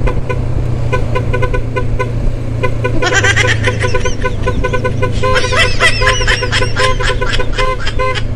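Motorcycle horn tooting in a fast, dance-like rhythm of several short toots a second, played to get the people riding in the truck ahead to dance. About three seconds in, warbling high tones join it, over the steady hum of the running motorcycle.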